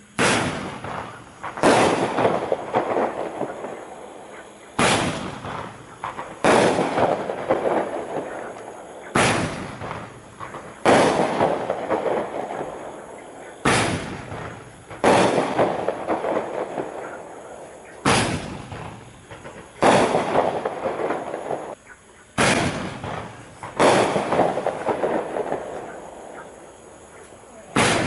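Five-ball Roman candles firing one shot after another. Each shot is a launch pop, then the ball's burst about one and a half to two seconds later. The pairs repeat roughly every four and a half seconds, and each sound dies away over a couple of seconds.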